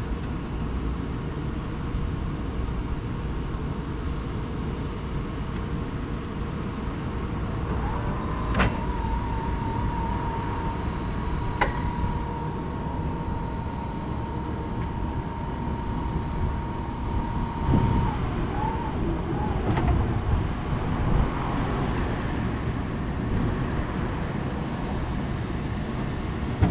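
Toyota 6BRU18 electric reach truck operating. About a third of the way in a click sets off a steady electric motor whine, which holds for about ten seconds, with a second click partway through, and stops with a low thump. A steady low rumble runs underneath.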